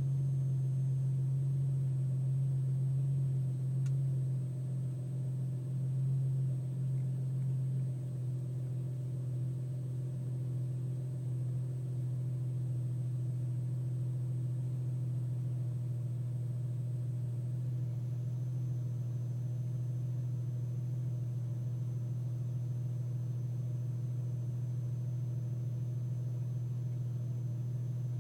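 A steady low-pitched hum from a car, the unexplained noise being recorded. It drops a little in level after about eight seconds.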